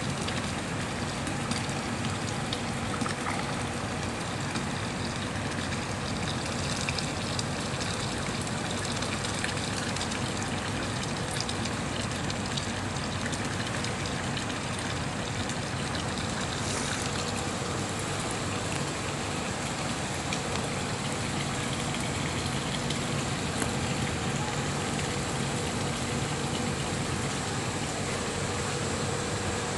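Water running and splashing steadily into a fish pond, an unbroken rushing trickle.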